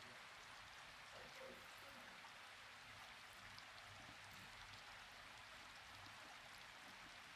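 Near silence: a steady, faint background hiss.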